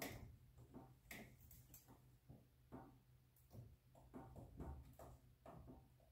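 Near silence over a faint low hum, with scattered faint ticks and creaks as a hydraulic floor jack is slowly let down under a car's front lower control arm and compressed coil spring.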